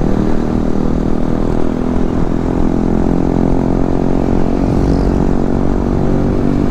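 Motorcycle engine running steadily while riding, its pitch holding fairly even with small changes, over a low rumble.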